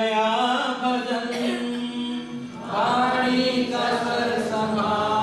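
A man chanting a Hindu devotional chant in long, held notes.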